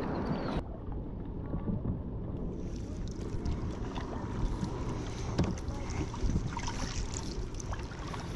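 A plastic folding kayak out on the water: low wind rumble on the bow-mounted action-camera microphone, water noise around the hull, and a few light knocks and splashes scattered through.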